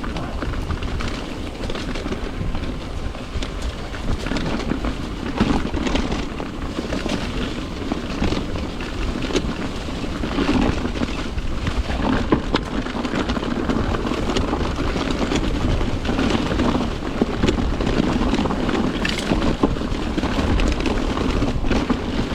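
Mountain bike riding down a rough, rocky trail: steady wind rush over the microphone, with tyres rolling over dirt and rock and the bike rattling in many short knocks.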